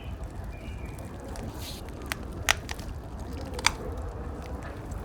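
A few sharp crunching clicks over a steady low rumble, the two loudest about two and a half and three and a half seconds in.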